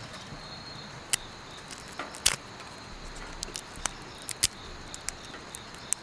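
Wood fire crackling in a wood-burning stove, with sharp irregular pops, over the steady chirring of crickets.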